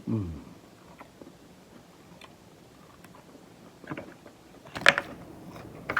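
Close-up eating sounds: a short falling hum from the eater at the start, then quiet chewing with faint small clicks, and a sharp crunchy bite about five seconds in, a raw celery stick from the salad.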